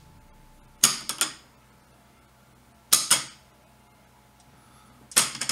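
Steel balls snapping against neodymium magnets and each other on a magnetic linear accelerator track: three short bursts of sharp metallic clacks, each two or three quick hits, about a second in, three seconds in and near the end.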